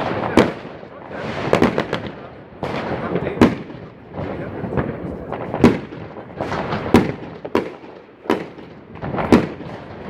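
New Year's fireworks going off: sharp bangs of differing loudness about once a second, over a continuous background of more distant bangs and crackle.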